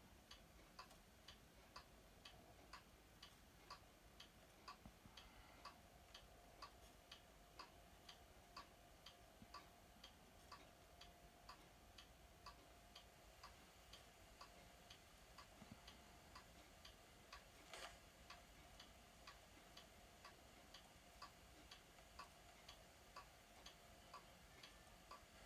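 Near silence with faint, regular ticking about twice a second over a faint steady hum, and one slightly sharper click about eighteen seconds in.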